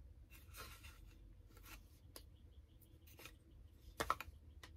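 Faint handling noises from large wooden-handled paint brushes being held and shifted in the hands: soft scattered rustles and rubs, with a few sharper clicks about four seconds in.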